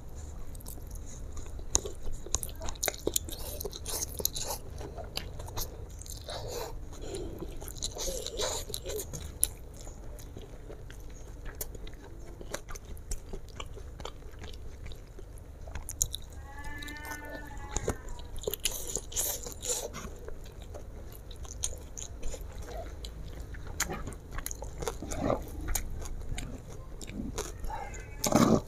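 Close-miked mouth sounds of a person eating fried flat rice noodles (kwetiau goreng): wet chewing and lip smacking with frequent small clicks, and stretches of slurping as noodles are drawn in. A short pitched sound comes about halfway through.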